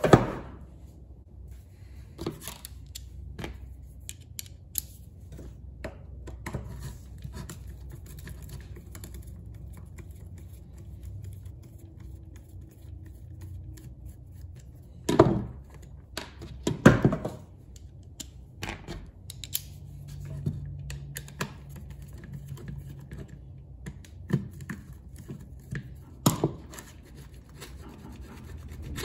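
Screwdriver work on a string trimmer's metal gearhead: Torx screws being turned out, with scattered clicks and scrapes of the driver and small parts. There are a few louder knocks about halfway through and again near the end.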